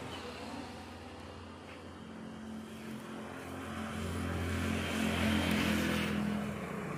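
A vehicle engine humming steadily, growing louder about four seconds in and easing slightly near the end.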